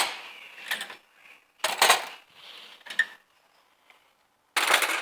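Metal cutlery, knives among it, clattering and clinking as it is taken out and put away, in several separate bursts with short quiet gaps, some strokes leaving a brief metallic ring.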